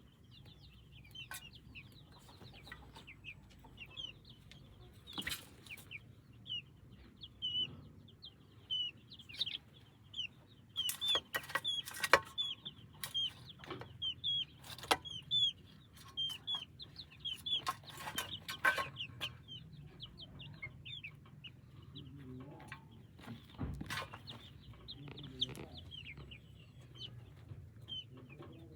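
Chickens: a stream of short, high chick peeps, thickest in the middle, with clucking and scattered sharp knocks.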